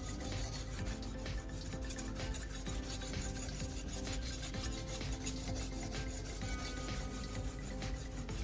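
Steel knife blade stroked back and forth over wet sandpaper, a repeated gritty scraping of many short strokes, as the edge is sharpened.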